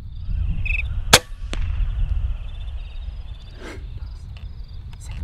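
A single shot from an Air Arms Ultimate Sporter .22 pre-charged pneumatic air rifle: one sharp crack about a second in, followed by a fainter click, over a low rumble.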